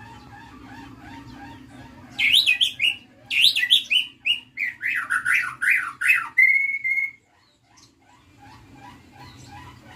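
White-rumped shama (murai batu) singing: a loud run of fast, sweeping whistled phrases from about two seconds in, ending on a short steady note about seven seconds in, with soft chirping before and after.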